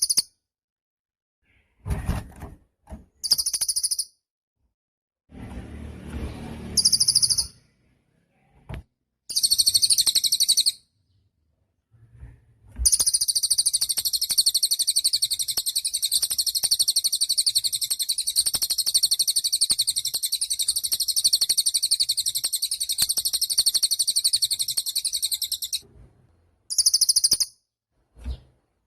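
A cililin songbird singing very high, rapid trills: several short bursts, then one long unbroken trill of about thirteen seconds and a last short burst near the end. A few low thumps and a soft rustle come in the first few seconds.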